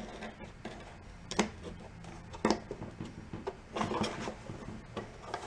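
Scattered clicks and knocks of mower parts being handled and fitted: one about a second and a half in, another about two and a half seconds in, and a short cluster near four seconds, over a faint low hum.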